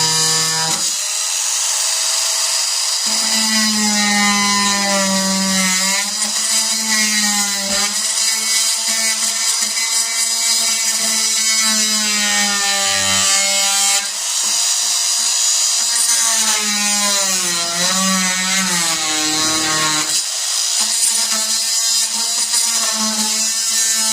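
Electric Porter-Cable oscillating multi-tool cutting through plywood. Its whine runs steadily, dipping and rising in pitch over and over as the blade bites into the wood and eases off.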